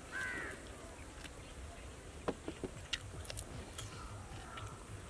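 A fly buzzing close by at the start, then fainter buzzing, with a few short clicks about halfway through.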